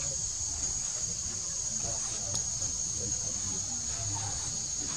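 Steady high-pitched drone of insects in the forest, holding one pitch without a break, over a low background rumble.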